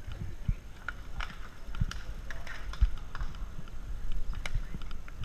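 Scattered sharp clicks from a group of road bicycles setting off at walking pace, with cycling cleats clipping into pedals, over a steady low rumble.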